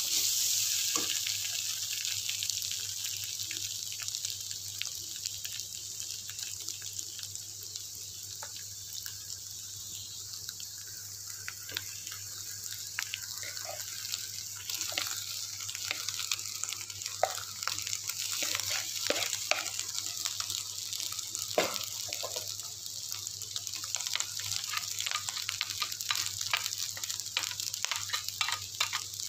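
Egg and pounded garlic, shallot, chilli and anchovy paste sizzling in a hot wok, a steady hiss that eases off over the first several seconds. From about halfway, scattered scrapes and taps of a metal spatula against the wok as cooked rice is tipped in and pushed around.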